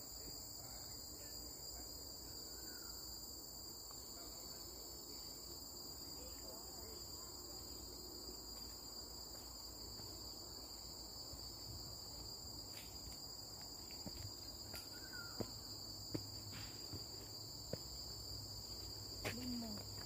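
A steady, high-pitched chorus of forest insects, holding several constant pitches without a break. A few sharp clicks come through in the second half.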